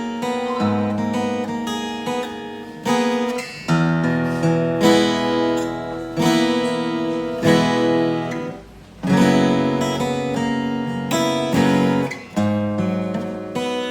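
Cowboy GWC 240 NAS acoustic guitar, freshly restrung, strummed with a pick: a run of ringing chords that change every second or two, with a short break about nine seconds in.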